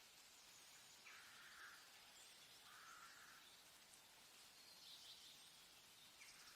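Faint forest ambience: a steady soft hiss with a few short bird calls, one about a second in, one near three seconds and a higher one near five seconds.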